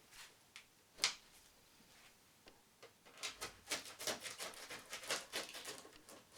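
Handling noises from unpacking: one sharp click about a second in, then a quick run of clicks and rustles from about three seconds in.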